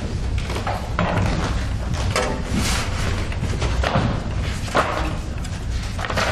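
Irregular thumps and knocks of a metal music stand being adjusted and sheet music being set on it, with footsteps on a wooden stage floor and the rustle of paper.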